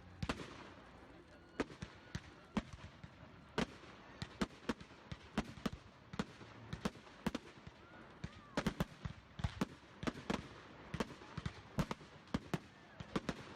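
Fireworks going off: a rapid, irregular string of sharp bangs and pops, several close together at times.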